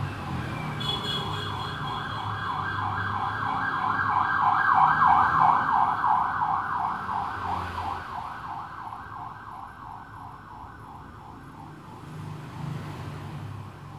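A siren yelping in a fast up-and-down sweep of about five cycles a second. It grows louder to a peak about five seconds in, then fades away. A low rumble runs beneath it.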